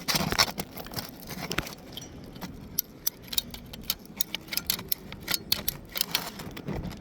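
Irregular sharp clicks, taps and light rattling from hand work with a caulking gun under a lifted roof shingle.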